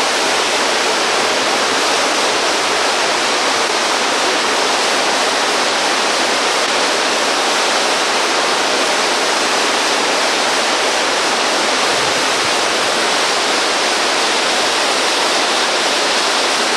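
River rapids rushing steadily over rock ledges: a continuous, even wash of whitewater noise.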